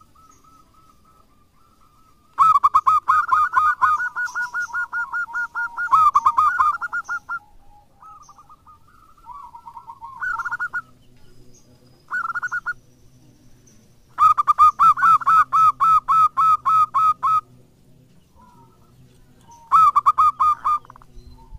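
Zebra dove (perkutut) singing: several phrases of rapid staccato cooing notes, about four a second, with softer coos between.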